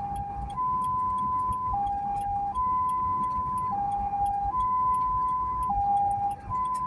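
Ambulance's two-tone hi-lo siren, switching back and forth between a higher and a lower note about once a second, heard from inside the cab over engine and road noise.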